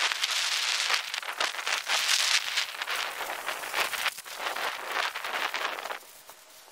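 Garden hose spray wand spraying water onto green bean plants on a trellis. The spray rises and falls in strength and stops about six seconds in.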